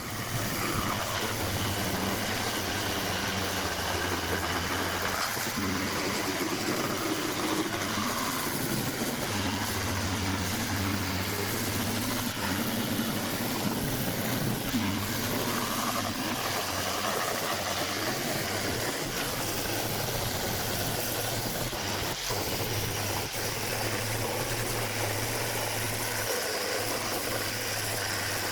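A steady, unchanging mechanical drone with a low hum.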